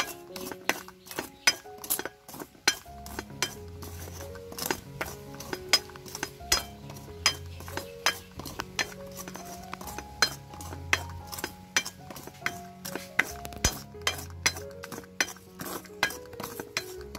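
Metal spoon clinking and scraping against a cast-iron wok as it stirs dry spice powder, in quick irregular strikes, over background music with held notes.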